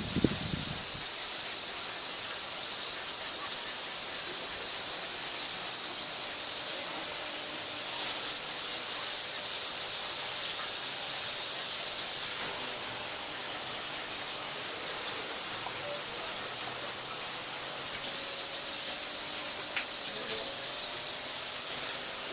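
Kyzuku mini ceiling fan running: a steady airy hiss with a faint, steady hum under it.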